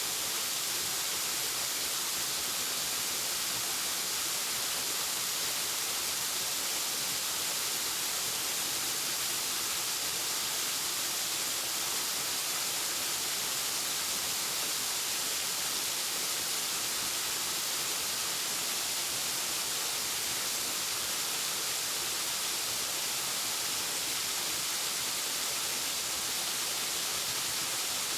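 Waterfall: falling water rushing in a steady, unchanging hiss.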